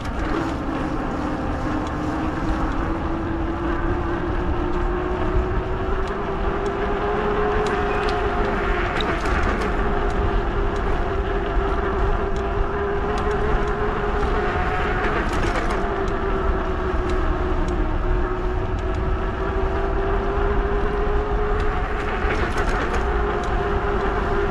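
Fat-tire e-bike riding along: a steady whine whose pitch drifts slowly up and down with speed, over a low rumble from wind and road.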